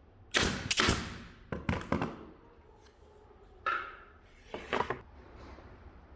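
Four short clusters of sharp clicks and clacks from hand work. The first cluster, about half a second in, is the loudest.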